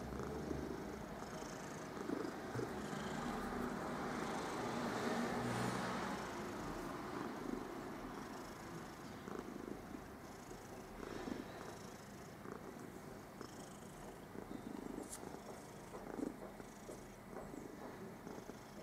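Black domestic cat purring continuously while being stroked, a contented purr.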